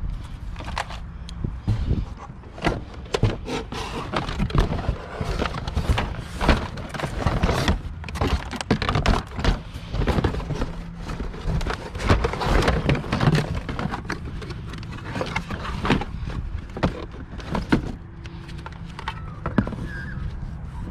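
Repeated irregular knocks, clicks and clatter of hard scrap items being handled and moved about.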